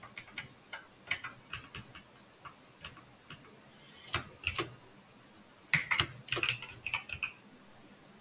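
Computer keyboard typing: irregular single key clicks, with a quicker, louder run of keystrokes about six seconds in.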